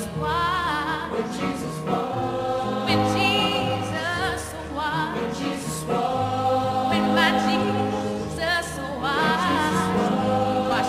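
Choral Christian song: several voices singing with vibrato over steady backing notes.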